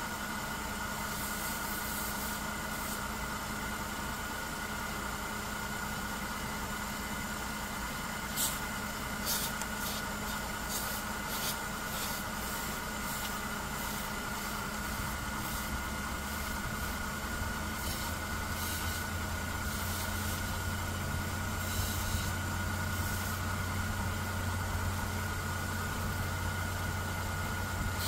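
Mercedes-Benz M272 V6 engine idling, heard from underneath near the belt drive: a steady hum with a constant high-pitched whine over it. About halfway through a deeper drone grows louder, and a few light ticks sound in the first half.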